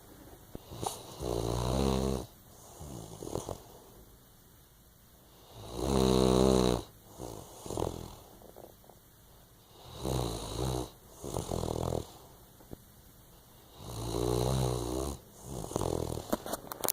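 Sleeping dog snoring: a pitched snore about every four seconds, some coming in pairs, with quieter breathing between. The loudest snore comes about six seconds in.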